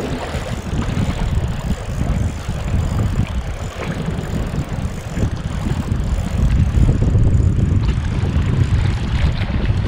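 Wind buffeting the microphone in gusts, a heavy low rumble, over the wash of sea on the rocks.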